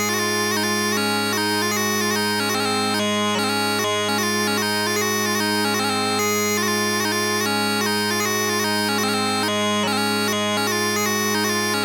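Bagpipes playing a lively tune: a melody of quick-changing chanter notes over steady, unbroken drones.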